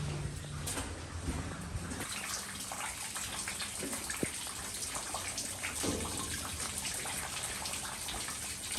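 Steady rush of water, with a few faint clicks. A low hum is under it for the first two seconds.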